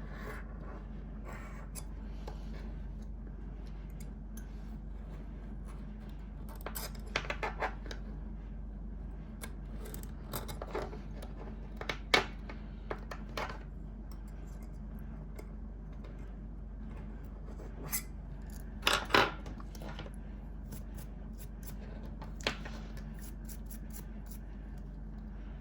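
Small metal hand tools clicking and scraping as they are handled and set down on a hard surface, in scattered short clicks over a steady low hum.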